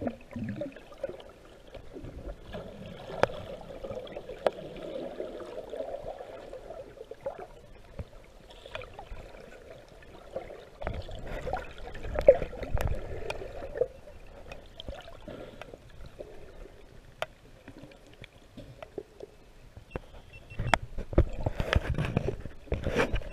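Underwater recording of short-finned pilot whales: scattered sharp clicks and wavering calls over a steady gurgle of water. Louder water sloshing comes in near the end.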